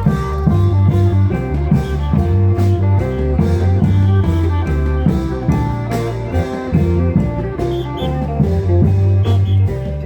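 A klong yao procession band playing loud amplified Isan music: a plucked lead melody over heavy sustained bass notes and steady, dense drumming.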